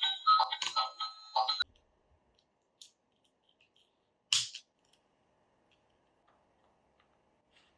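A short electronic melody of beeping, ringtone-like notes that cuts off abruptly about a second and a half in, followed by quiet broken by a faint click and a brief rustle of handling.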